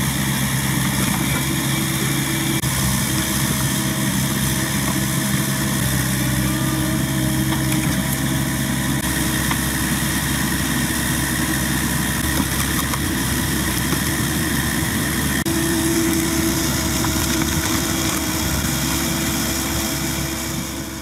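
Engine of a Vermeer mini skid steer running steadily while it drives a hydraulic screw-cone log splitter boring into logs.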